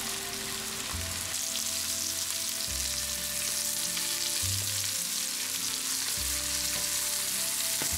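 Flour-dredged chicken thighs and breasts browning in butter in a pan, with a steady sizzle, while metal tongs turn the pieces.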